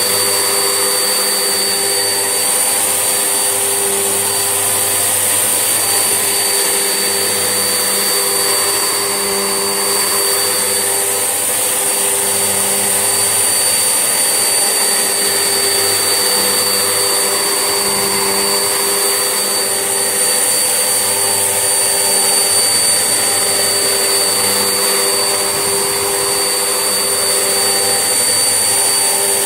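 Vax Essentials vacuum cleaner running steadily with a constant high whine. Its low hum swells and fades every couple of seconds.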